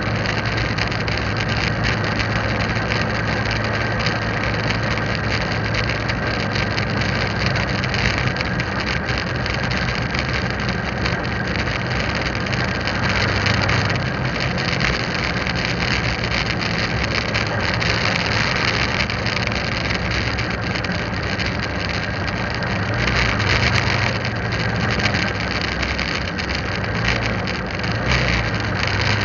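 A motorbike engine running steadily while riding, a constant low hum under an even hiss of wind and road noise.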